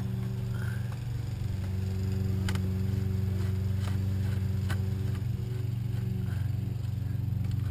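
A steady low mechanical hum, with a few faint clicks from a screwdriver turning out a Corvette door sill screw.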